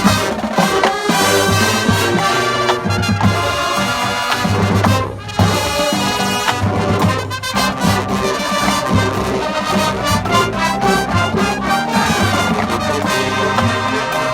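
Marching band playing, with the brass (trumpets and trombones) leading over the percussion. There is a brief drop-out about five seconds in before the full band comes back in.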